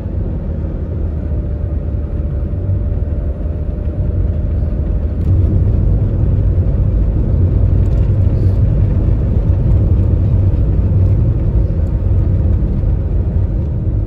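Toyota HiAce camper van driving at road speed: a steady low rumble of tyres and engine, a little louder from about five seconds in.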